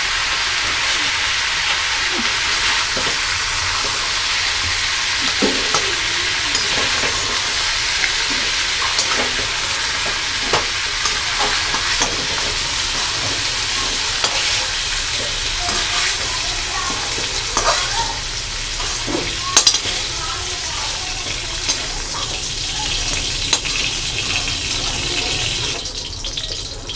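Pointed gourd (parwal) and potato pieces sizzling as they shallow-fry in oil in a steel kadai. A perforated metal spoon scrapes and clinks against the pan as they are stirred. The sizzling drops off sharply near the end, once the pan is emptied of the vegetables.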